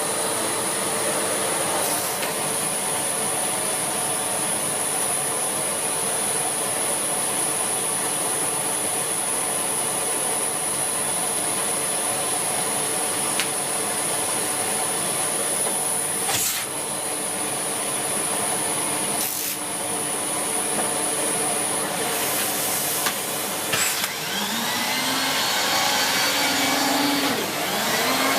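Siemens Z6.0 Power 2500 W bagged cylinder vacuum cleaner running on carpet with its air-driven turbo brush, a steady rush of suction with a thin high whine. There are a couple of brief knocks, and near the end the motor's pitch rises and shifts.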